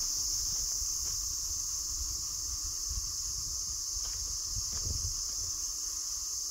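Steady, high-pitched chorus of forest insects, with a low rumble beneath and a few soft knocks about a second in and around four to five seconds in.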